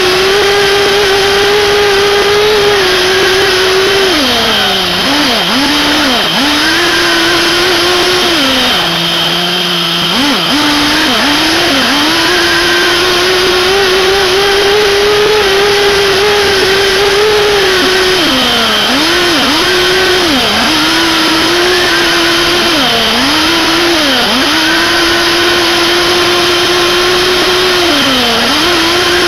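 Small two-stroke nitro glow engine (SH PT21-P3, 3.48 cc) of a 1/8 scale RC buggy running at high revs with a steady high-pitched note. Several times the pitch dips and climbs back as the throttle is lifted and reapplied, and about nine seconds in it falls to a low idle for a moment before revving up again.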